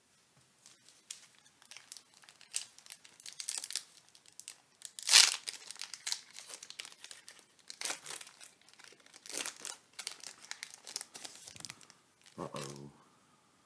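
A foil Pokémon booster pack wrapper being torn open and crinkled by hand: a long run of irregular crackles, with one sharp rip about five seconds in that is the loudest moment.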